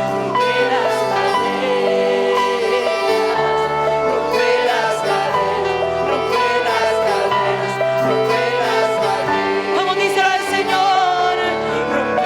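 Live church praise-band music: sustained chords over a stepping bass line, with some singing.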